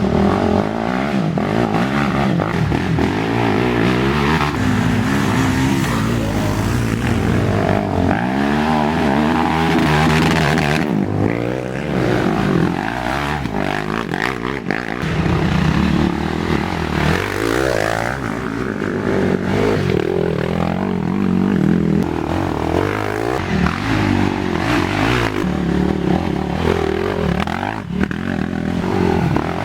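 Several racing ATV engines revving hard and backing off, their pitch rising and falling again and again as the quads race by.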